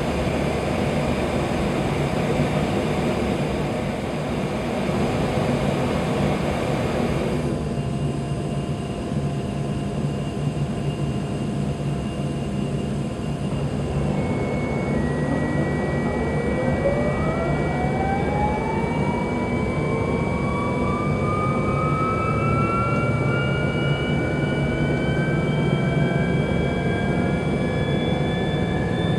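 Pratt & Whitney JT8D jet engine of a McDonnell Douglas DC-9 starting up, heard from inside the cabin. A steady hiss cuts off abruptly about seven seconds in, a steady whine comes in around halfway, and then the engine's whine climbs steadily in pitch as it spools up.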